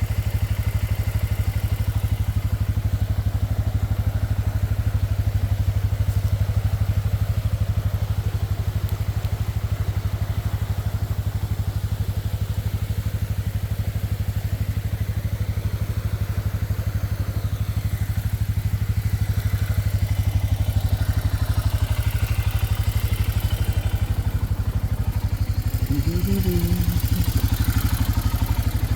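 Four-wheeler (ATV) engine idling steadily while the machine stands still.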